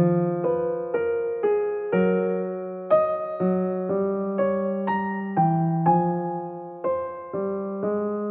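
Background music: a piano playing a slow, gentle melody over chords, a new note struck about twice a second and each one fading away.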